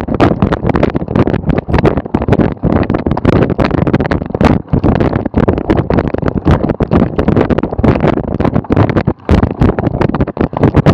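Wind buffeting the microphone of a bike-mounted action camera while a cyclocross bike rides over rough grass, with constant jolting knocks and rattles from the bumps.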